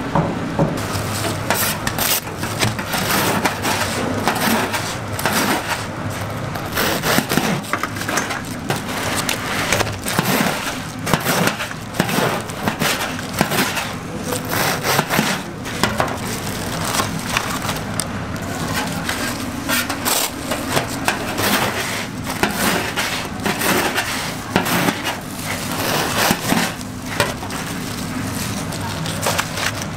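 Crisp breadcrumb crust of deep-fried croquette toast crunching and crackling as a large knife cuts through it, in many sharp crunches over steady background noise.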